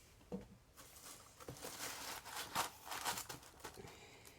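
Paper being handled: a run of soft rustles and crinkles from about one second in to near the end.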